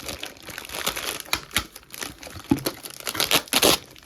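Toy packaging being handled and opened: irregular crinkling and tearing rustles, with a louder burst of crackling near the end.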